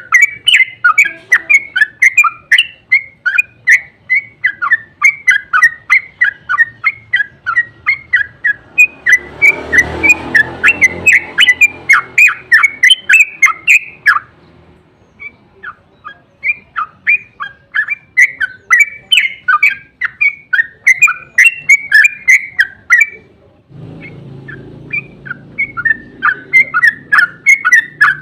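Yellow-vented bulbul (trucuk) singing a long run of its fast chattering song ('ropel'): short bubbly notes several times a second, thinning briefly about halfway through. A rustling noise comes in under the song around ten seconds in and again near the end.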